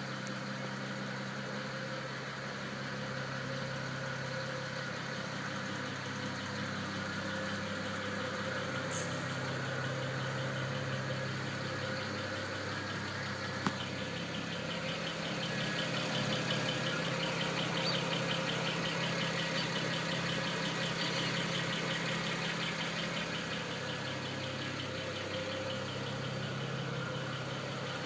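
BMW 335i's turbocharged straight-six engine idling steadily with a fast, regular ticking that becomes more distinct about halfway through.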